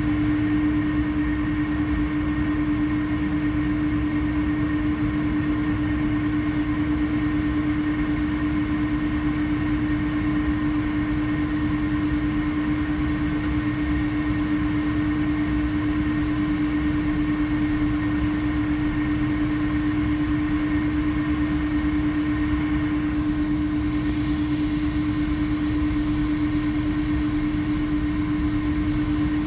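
Jet airliner engines running steadily at idle: an even hum with one strong low tone held throughout over a low rumble.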